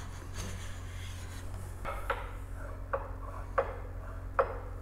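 Hand plane taking short shavings off the edge of an oak board: four brief strokes, about a second apart, starting about two seconds in.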